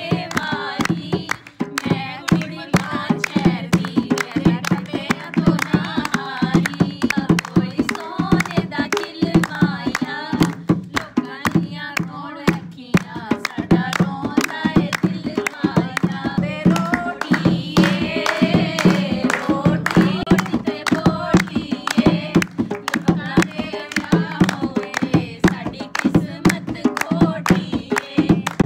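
Dholak (dholki) drum played by hand in a quick, steady rhythm, with voices singing along in a folk wedding song.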